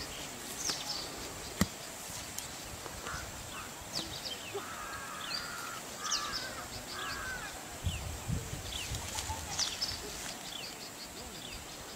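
Birds calling: crows cawing in a run of harsh calls a few seconds in, over many short, quick chirps from smaller birds. A single sharp click comes about a second and a half in.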